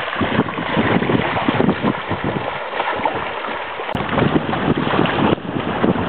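Wind buffeting the microphone over small waves lapping in the shallows.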